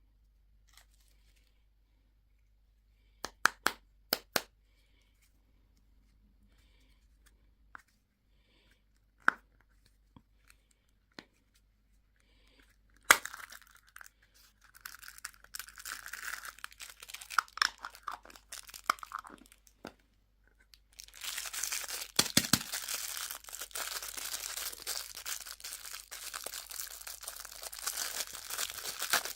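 Candy packaging being opened: a few sharp clicks, then a wrapper torn and crinkled, the crinkling dense and continuous over the last third.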